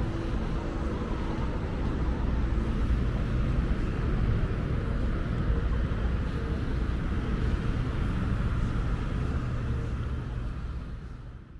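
Busy city street ambience dominated by vehicle traffic: a steady traffic noise that fades out near the end.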